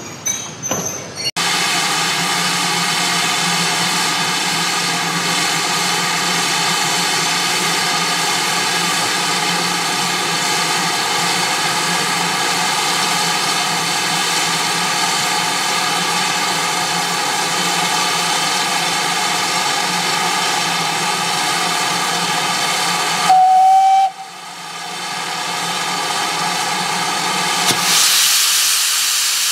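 Steam from GWR Manor-class 4-6-0 7820 Dinmore Manor standing in a station: a loud steady hiss of escaping steam, broken just after 23 seconds by one short whistle blast. Near the end the cylinder drain cocks open with a fresh hiss of steam. Coaches roll past briefly at the very start.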